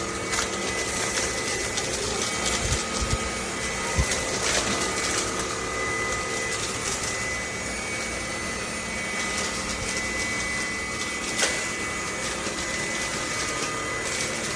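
Cordless stick vacuum cleaner running steadily, its motor giving a constant whine over the airflow, with a few light knocks as it is moved.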